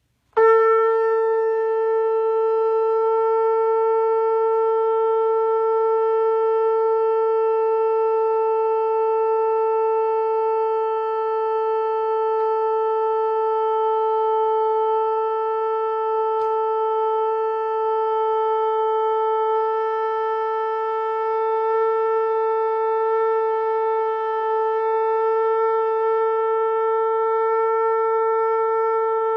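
A shofar sounding one long, steady note that begins just after the start and is held without a break, with no change in pitch.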